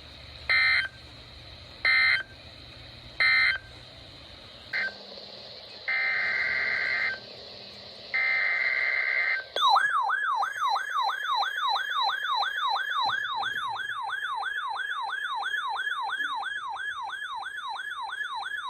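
Emergency Alert System signal: three short screeching bursts of SAME digital header data about a second and a half apart, then two longer data bursts. About halfway through, an electronic alert tone starts, warbling rapidly up and down about three times a second like a siren.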